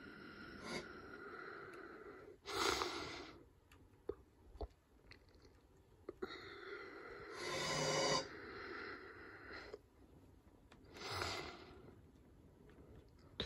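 Faint breathing close to the microphone, three breaths a few seconds apart, with a few soft clicks between them.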